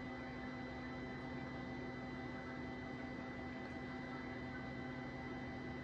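Steady electrical hum with a faint, constant high-pitched whine.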